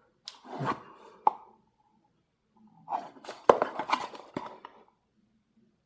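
Handling noise of a plastic 3x3 speed cube held and turned over in the hands: soft rustling with a few sharp plastic clicks and taps, in two short spells about a second in and again around three to four seconds in.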